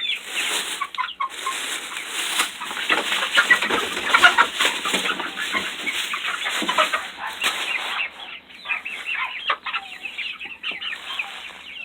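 A flock of young chickens clucking and cheeping with many short overlapping calls, busiest in the first eight seconds and thinning out after.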